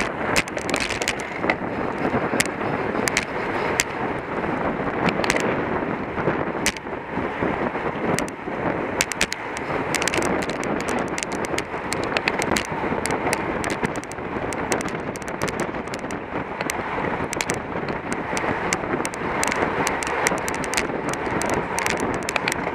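Steady rush of wind on the microphone at riding speed, with many sharp clicks and rattles scattered irregularly through it.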